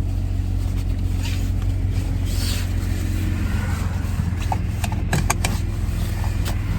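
Steady low hum of a Dodge Grand Caravan minivan running, heard from inside the van, with a few light clicks about five seconds in.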